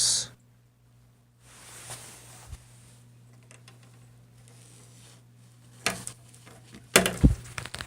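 Handling noise from a new cardboard-framed furnace filter being fitted into its slot: soft rustling, then a few sharp knocks and rattles near the end. A steady low hum lies underneath.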